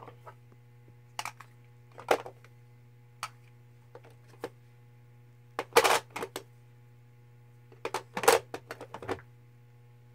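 Plastic blush compacts being handled: scattered sharp clicks and clacks, with louder clattering bunches around the middle and again near the end. A steady low hum runs underneath.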